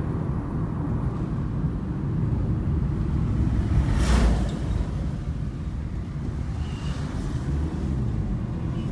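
Low, steady rumble of a car's engine and road noise heard from inside the moving vehicle, with a brief louder rush of noise about four seconds in.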